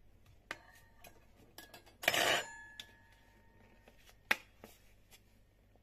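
Kitchenware being handled on a counter: a few light clicks, a clatter about two seconds in that leaves a short ringing note, and a sharp snap a little after four seconds as the syrup bottle's flip-top cap is opened.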